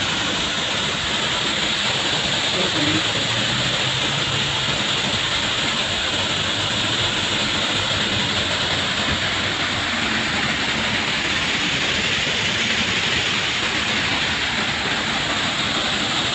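Water falling and splashing in a fountain: a steady, even hiss of running water.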